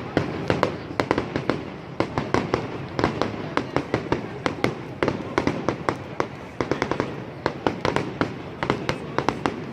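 Fireworks going off: a dense, continuous run of sharp crackling pops and bangs, several a second.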